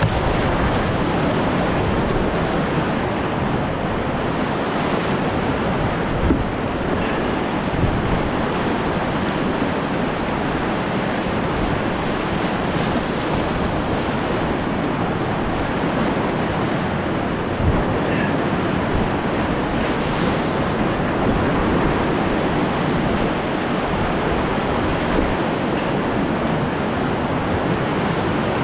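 Big whitewater rapid rushing steadily around an open canoe, the waves breaking and splashing against the bow. A few brief thumps stand out, about six and eighteen seconds in.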